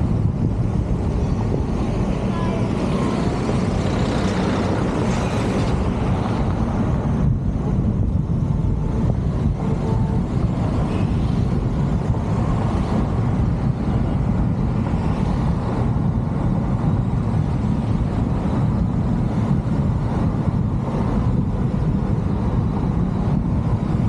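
Steady wind and road noise from a moving car, picked up by a camera mounted on the outside of the car: an even, low rush that holds at one level throughout.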